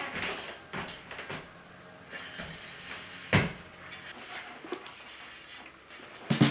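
A few scattered knocks and thumps in a quiet room, the loudest a single sharp knock about three and a half seconds in.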